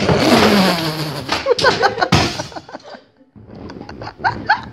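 A box knocked off a high shelf by a cat clatters down, with a sharp thump about two seconds in, while a person's voice cries out.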